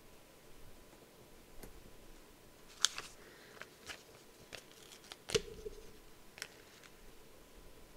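Faint handling of a paper sticker sheet as stickers are peeled off and pressed down: scattered light crinkles and clicks, with a sharper tap about three seconds in and a tap with a dull thud a little after five seconds.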